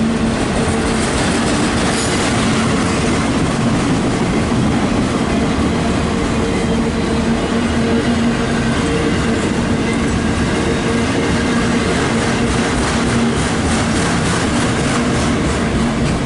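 Loaded autorack freight cars passing close by at speed, their steel wheels rolling over the rails in a loud, steady rumble.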